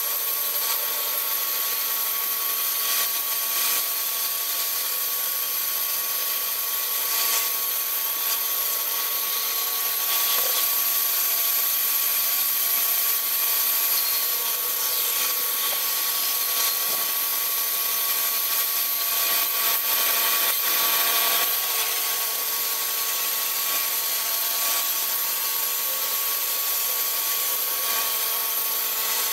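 Large band saw cutting lengthwise through a log, a steady whine over the hiss of the blade in the wood.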